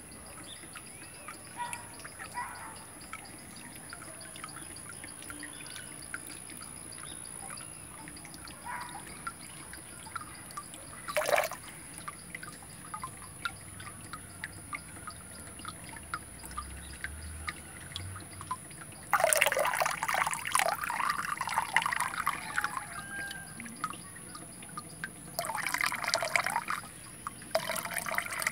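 Water poured from a plastic cup into a fish tank, splashing and trickling onto the surface in three bursts in the later part, after a stretch of faint hiss with small drips and one sharp knock.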